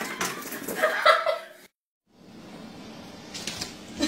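A person laughing, cut off abruptly about one and a half seconds in; after a moment of silence, faint room noise.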